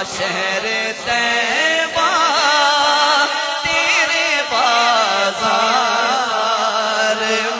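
A man's solo voice singing a naat into a microphone, in long, ornamented phrases that waver and glide in pitch, over a steady low drone.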